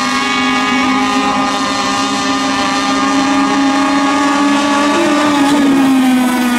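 Several radio-controlled racing boats running flat out together in a steady, high-pitched drone, their engine notes overlapping. About five seconds in, one boat's pitch bends up and then falls away as it passes.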